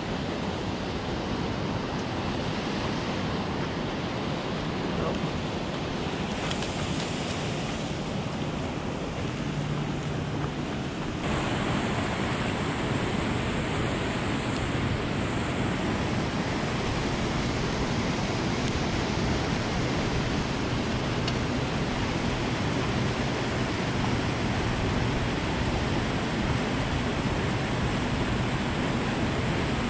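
Steady rush of a waterfall pouring into a lake: a constant roar of falling, churning water that grows louder about eleven seconds in.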